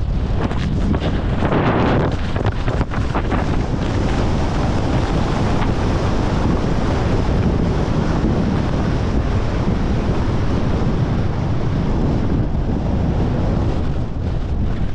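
Wind buffeting the microphone of a camera carried by a fast-moving skier, a steady loud rush. Skis scrape and chatter on the snow, with a run of sharp scrapes in the first few seconds.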